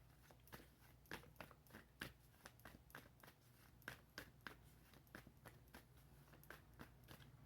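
Faint, irregular light clicks and taps, a few a second, of tarot cards being handled and laid out.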